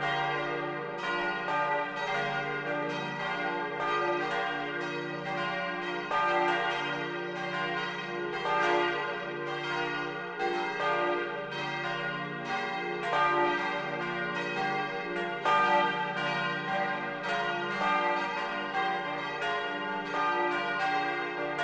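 Full peal of four swinging bronze church bells, tuned d'–f'–g'–b' and cast in 1950 by Junker of Brilon, heard close up from inside the bell tower. Strokes come about twice a second and overlap in a continuous ringing hum.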